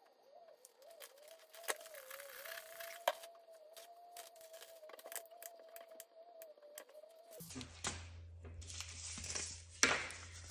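Quiet rustling, crinkling and small clicks from hands handling seed packets, plant labels and a plastic seed-starting tray. A faint wavering tone hums underneath and gives way to a low hum a little after seven seconds.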